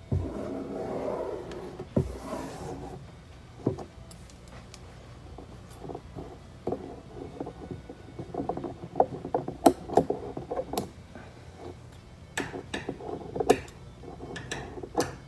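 Scattered sharp clicks and knocks of objects being handled, a few at first and coming more often in the second half.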